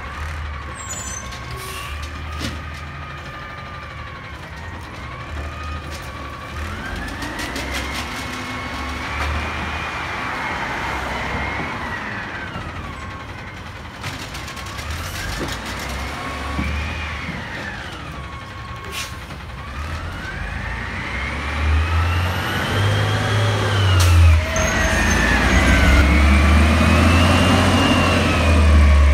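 Natural-gas Peterbilt 320 garbage truck's engine revving up and down in several long swells while its Amrep automated side-loader arm lifts and dumps a cart, with a few knocks along the way. Near the end the engine gets much louder as the truck pulls away.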